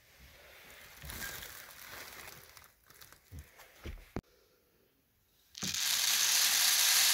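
Rustling of a woven plastic grain sack as grain is scooped out, with a sharp knock a little past four seconds. Near the end comes a loud, steady rush of dry grain poured from a mug into a grey plastic-pipe feeder, lasting about two seconds.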